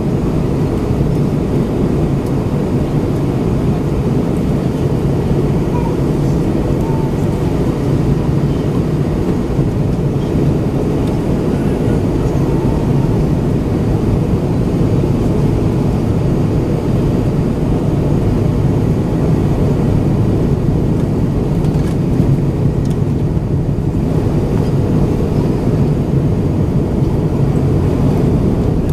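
Steady cabin noise inside an Airbus A320-232 airliner in descent: the low rumble of airflow over the fuselage and wing mixed with the drone of its IAE V2500 turbofan engines, with a steady low hum.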